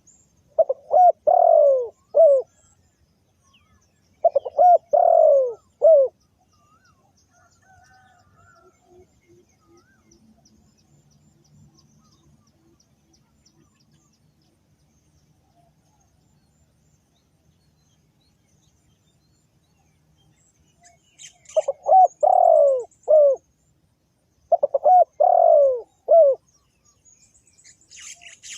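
Spotted dove cooing: four loud phrases of several coo notes each, two near the start and two about three-quarters of the way through. Higher chirps from another bird begin near the end.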